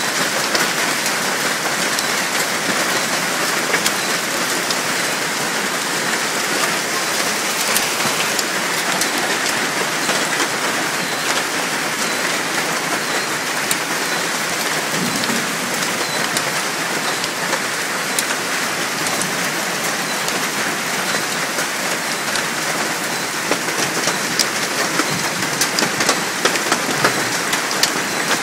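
Heavy rain and hail coming down hard: a dense, steady hiss with many sharp ticks of hailstones striking. The ticks come a little thicker near the end.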